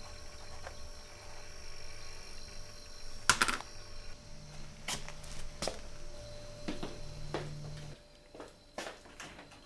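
Room tone with a faint steady hum, broken by one sharp knock about a third of the way in, then scattered light knocks and footsteps as someone gets up and walks off.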